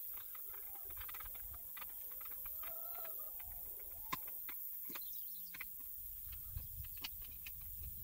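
Birds chirping outdoors, with scattered small clicks and taps from hand work on the office chair's metal seat mechanism.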